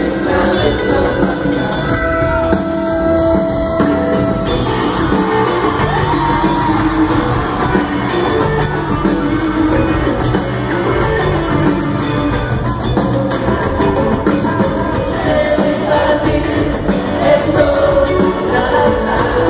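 Rock band playing live with a lead singer, loud and steady, heard from among the audience in a large hall.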